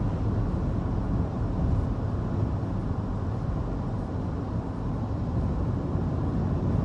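Steady road and engine noise heard inside the cabin of a moving SUV: an even low rumble with a fainter hiss above it.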